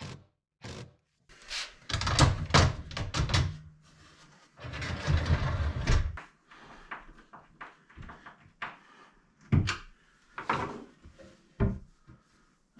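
Wooden kitchen base cabinets being worked on and shifted into place: a series of knocks and bangs of wood on wood, a cluster of them a couple of seconds in, and a noisy stretch of about a second near the middle.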